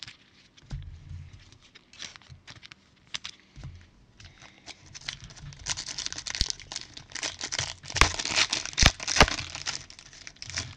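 Trading card pack's shiny plastic wrapper being torn open and crinkled by gloved hands. Scattered rustles come first, then dense crackling through the second half, loudest near the end as the torn wrapper is worked off the cards.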